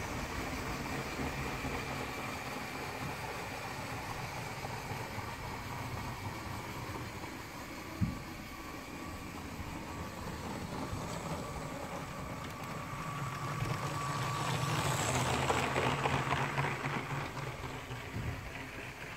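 A motorised LEGO train runs on plastic track, its small electric motor whirring and its wheels rattling. The sound grows louder from about 13 s in as the train nears, over a steady low room hum, with one sharp knock about 8 s in.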